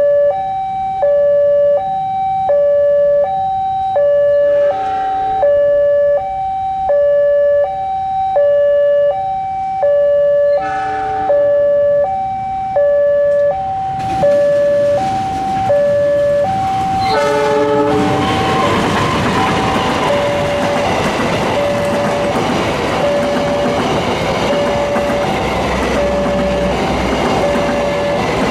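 Level-crossing warning alarm alternating between two tones, a little over one change per second, with short diesel locomotive horn blasts, the clearest about halfway through. Then a passenger train rolls past close by, its wheels rumbling and clacking on the rails, while a crossing alarm beeps a single tone about once a second.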